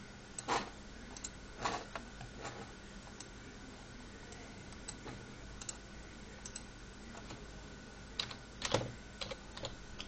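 Irregular clicks and taps from a computer being operated by hand, a few near the start, one in the middle and a cluster near the end, over a faint steady hum.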